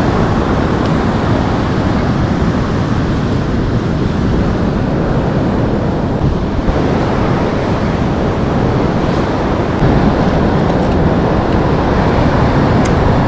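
Ocean surf washing on the beach with wind on the microphone: a steady, loud rushing noise, heaviest in the low end, a little louder from about ten seconds in.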